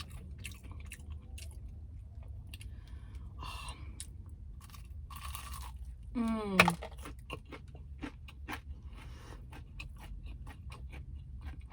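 Close-miked chewing and crunching of crispy breaded fried chicken tenders, over a steady low hum. About six seconds in, a short, loud vocal sound falls in pitch.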